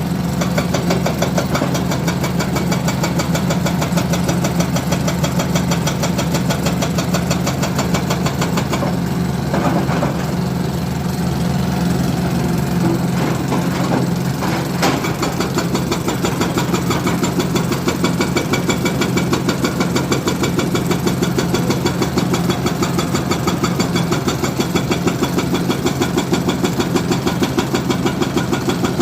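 Heavy machine's diesel engine running steadily with a fast even beat, and a couple of brief clicks about midway.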